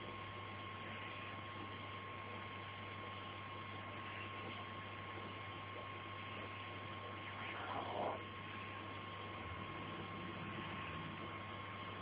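Steady electrical hum with a faint hiss, and a single short descending squawk from an African grey parrot about eight seconds in.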